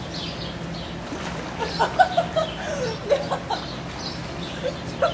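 Water splashing as a swimmer moves through a pool, with a run of short high chirps over it from about one and a half to three and a half seconds in.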